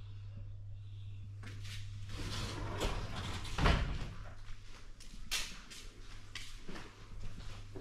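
Footsteps on a stone-tiled floor as someone walks through, with a steady low hum underneath and one louder dull thump a little past the middle.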